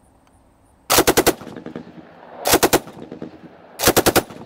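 Colt Monitor, a .30-06 Browning Automatic Rifle with a Cutts Compensator muzzle brake, firing on full auto. It fires three short bursts of a handful of shots each, about a second apart, the first coming about a second in. Each burst is followed by a brief fading echo.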